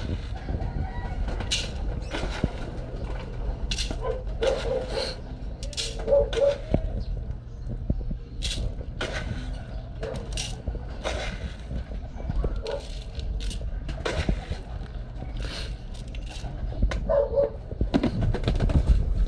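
Mixed pigeon grain scooped from a plastic tub with a plastic scoop and poured into a metal feeding trough: irregular rattles and sharp clicks as the dry corn and peas land on the metal and scrape in the tub.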